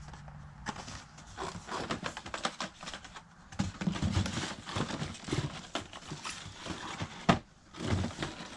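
Carded action figures being handled and shuffled: plastic blister packs and card backs clicking, tapping and crinkling in quick irregular strokes.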